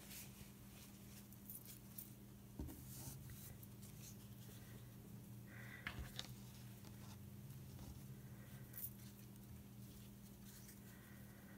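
Near silence: faint rustling of fabric scraps being handled and laid on a cutting mat, with a few soft clicks, over a steady low hum.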